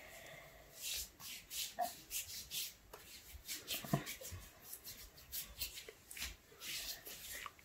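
A hand rubbing a tanning body cream into the bare skin of a forearm: faint, repeated soft swishing strokes.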